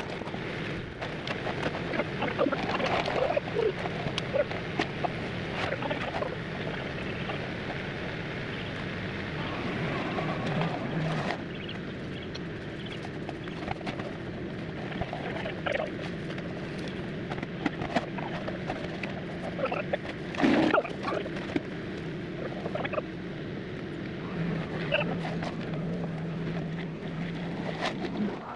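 Diesel engine of heavy equipment running steadily, with scattered clanks and one sharp knock about two-thirds of the way through.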